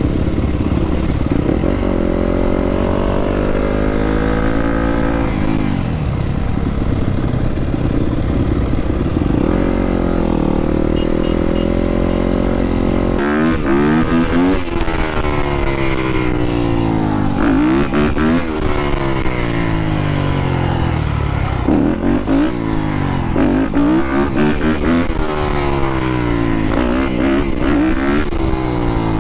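Yamaha dirt bike engine under way, its pitch climbing slowly and dropping back a couple of times, then from about halfway revving up and falling back again and again, every second or two.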